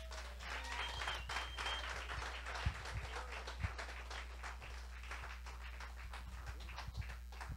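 Audience applauding, a spread of many hand claps, fairly faint, over a steady low electrical hum.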